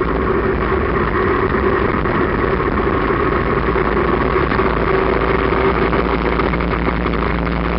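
Motorcycle engine running at a steady road speed, with wind rushing past the sidecar.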